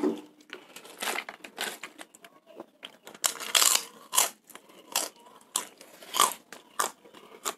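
Crispy kerupuk crackers being bitten and chewed close to the microphone: an irregular run of sharp crunches with short pauses, a few of them louder near the middle.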